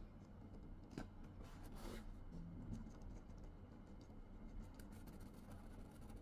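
Faint handling sounds as cooked instant noodles are tipped out of paper cups onto a plastic-covered table. There is a tap about a second in and a short scraping rustle just before two seconds, over a low steady hum.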